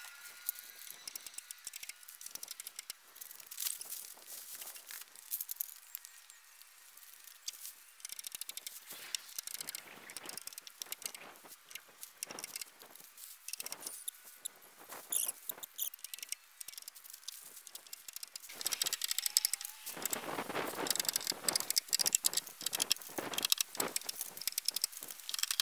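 Woven plastic house wrap rustling and crinkling as it is pulled out and pressed against wall studs, with scattered sharp clicks from stapling it in place. The rustling grows louder and fuller about 20 seconds in.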